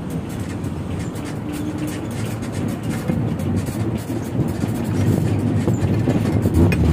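Bus running on the road, heard from inside the cabin: a steady low engine and road rumble with some rattle, getting louder in the second half.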